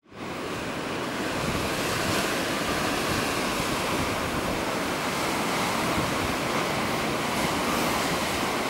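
Sea surf breaking against the rocks at the foot of a cliff, a steady rushing, mixed with wind on the microphone. It fades in at the very start.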